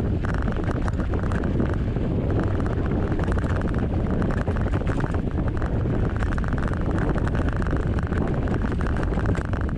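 Steady wind rushing over the microphone of a camera riding on a moving Giant Talon mountain bike, with a dense fine crackle of rattle and tyre noise from the ride.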